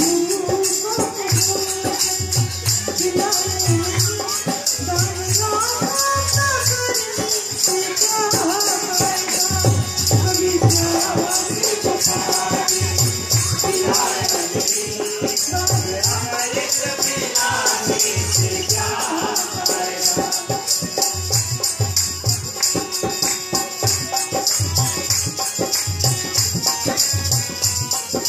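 Fiji Hindi devotional kirtan: a woman's singing over harmonium, with a steady dholak beat and a tambourine jingling on every stroke.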